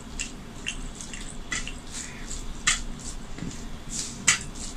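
Fingers mixing rice with curry on a steel plate: a run of short, wet, sticky clicks and squelches, two of them louder, one in the middle and one near the end.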